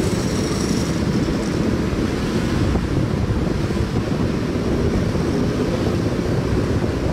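A group of sport motorcycles riding together, their engines running steadily, heavily mixed with wind buffeting on the microphone.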